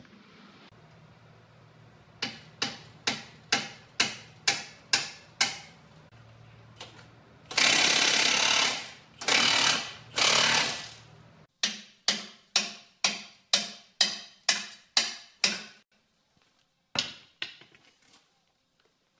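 A hammer striking metal in steady runs of blows, about two to three a second, each ringing briefly. In the middle come three harsh bursts of noise, each about a second long, and a low steady hum underneath stops shortly after them.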